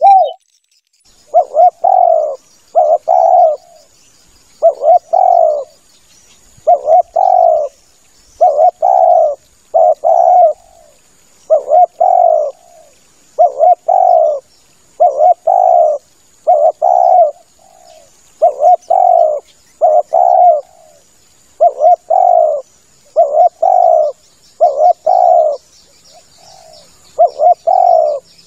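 Spotted dove cooing over and over, a lure call: short, mostly paired coo phrases about every second and a half. Faint high chirping runs behind it.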